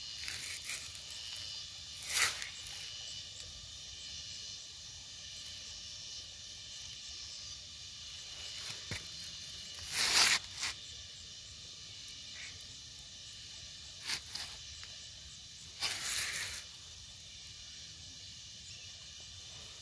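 Insects chirring steadily in the background, a thin high hiss, broken four times by short bursts of noise, the loudest about ten seconds in.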